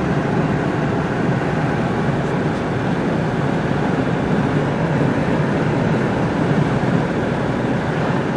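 Steady driving noise inside a truck's cab: tyre and engine noise blended into one even rumble at a constant cruising speed.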